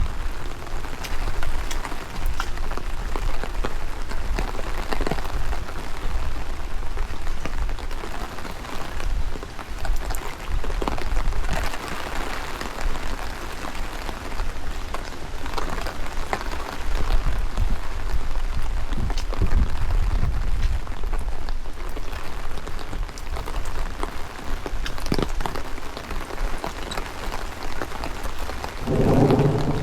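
Heavy rain falling and pattering on surfaces, with individual drops ticking sharply and strong gusting wind buffeting the microphone in low rumbles. Near the end a short low droning sound comes in.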